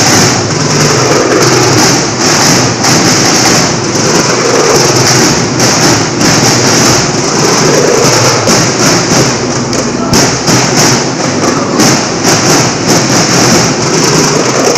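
Marching band snare drums beating a steady rhythm, loud.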